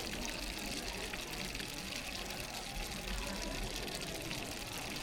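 The Aare River rushing through a gorge: steady, even water noise.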